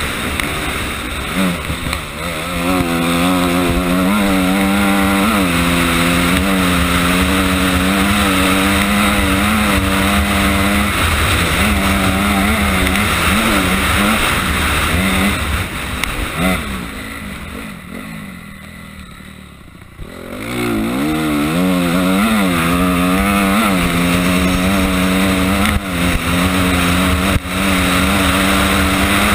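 Honda CRF250R single-cylinder four-stroke dirt-bike engine running hard under constantly varying throttle, with wind rushing over the onboard microphone. About two-thirds through, the throttle is shut and the engine goes quiet for a few seconds, then revs back up. A couple of sharp knocks come near the end.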